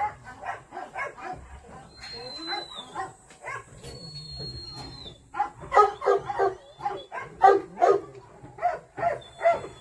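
A young Jindo-mix dog panting in quick rhythmic breaths, about three to four a second. The breaths are weaker for a few seconds in the middle and louder in the second half.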